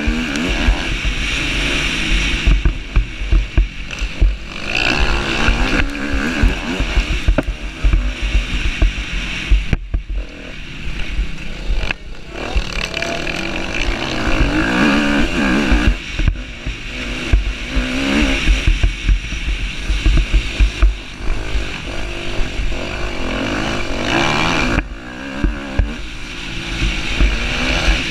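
Husqvarna TC250R motocross bike's engine under hard riding, revs repeatedly climbing and falling, with several brief sudden drops as the throttle is shut and gears are shifted. Wind buffets the microphone with a low rumble.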